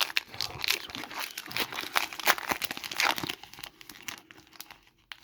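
Foil trading-card pack wrapper being crinkled and torn open: dense crackling for about three and a half seconds, then a few light handling clicks.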